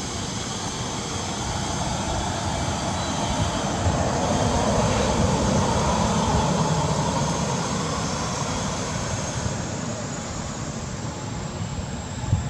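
Propeller or jet aircraft engine passing overhead: a steady rumble that grows louder to a peak mid-way and then slowly fades.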